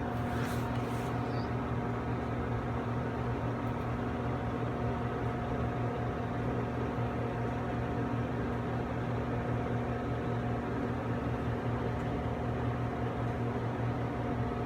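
A steady mechanical hum with an even hiss, holding several constant tones, with a few faint clicks in the first second.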